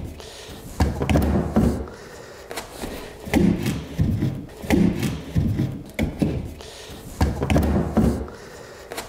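A 2x4 wooden box frame knocking and rubbing against the edges of a plywood subfloor opening as it is worked down into place by hand: an irregular series of dull wooden thumps and knocks.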